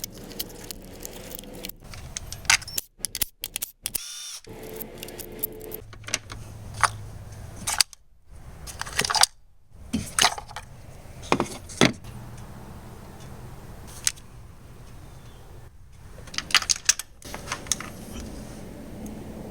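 Metal hand tools clinking and clicking in irregular bursts, typical of socket-and-ratchet work on ignition coils and spark plugs, with several abrupt cuts in the sound.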